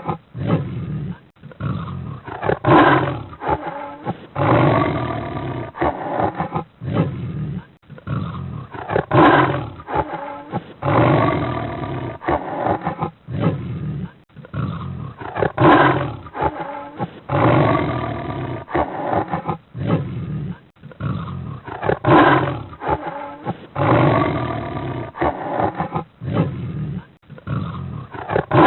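A big cat's roaring, growling calls in a loud sequence that repeats almost identically about every six and a half seconds, as from a looped recording with a muffled, dull top end.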